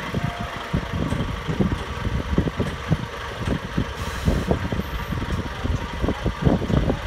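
Heavy truck tractor unit's diesel engine running as it slowly tows a low-loader trailer carrying a railway carriage, an uneven low rumble throughout.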